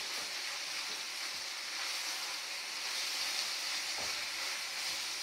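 Spinach and onions sautéing in a pan, a steady sizzle.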